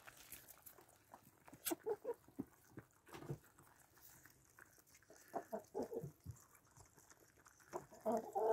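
Chickens clucking now and then while pecking at cooked mash in a feed bowl, with scattered sharp pecks. A run of clucks comes near the end.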